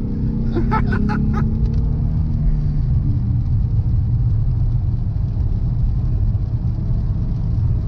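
Ford Mustang V6 engine and road noise as a steady low drone, the engine note easing down slowly over the first few seconds.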